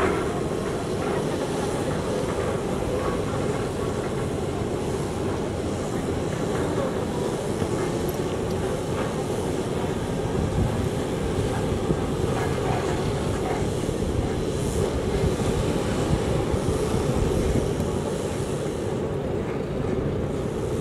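A steady, loud mechanical drone with a strong low rumble, rising a little in level for a few seconds past the middle.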